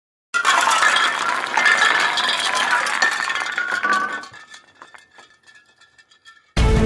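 Scrabble letter tiles clattering and clinking onto a game board: a dense run of small clicks that thins out and dies away about four seconds in. Music starts just before the end.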